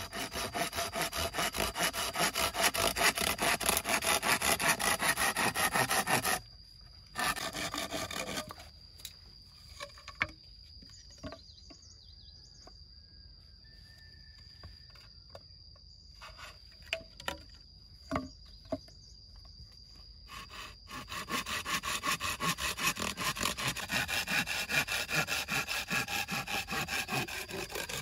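Hand saw cutting through green bamboo poles resting on a log, in rapid back-and-forth strokes. The sawing comes in two long bouts, one at the start and one in the last third, with a short burst between and a quieter stretch broken by a few light knocks.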